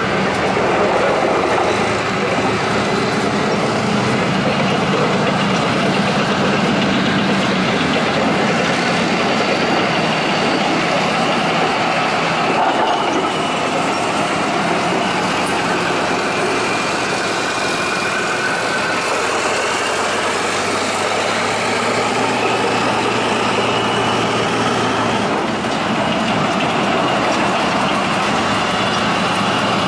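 Leopard 2 main battle tanks driving slowly past in a column: steady running of their V12 diesel engines with a high whine that drifts up and down in pitch.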